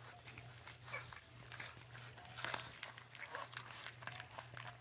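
Several puppies crunching and chewing dry kibble from a metal pan, a quick irregular patter of crunches and clicks. A steady low hum runs underneath.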